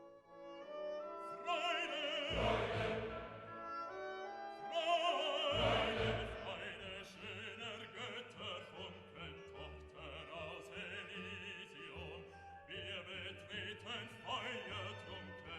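Classical background music: an operatic singing voice with wide vibrato over orchestral accompaniment, swelling loudest with deep bass notes about two and five seconds in.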